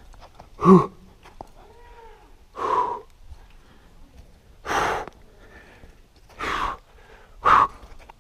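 A climber's hard breaths of effort: five loud puffs spaced about one and a half to two seconds apart, the first with a voiced grunt in it.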